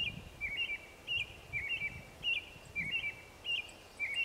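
A bird chirping in a regular two-note pattern: a lower double chirp answered by a higher chirp, repeating about once a second. A low rumble of wind on the microphone runs underneath.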